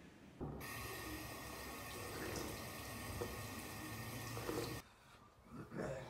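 Bathroom sink tap running water into the basin, starting about half a second in and shut off abruptly near five seconds, followed by a short separate sound just before the end.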